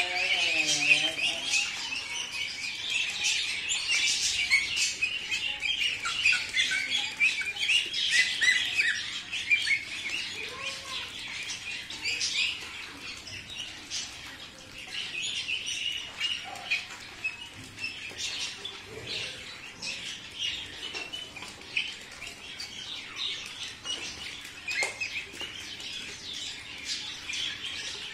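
A flock of young Khaki Campbell ducks peeping constantly in high, thin chirps while feeding from bowls of wet mash, with many quick clicks of bills dabbling in the feed. The peeping is thickest in the first ten seconds or so and thins out after.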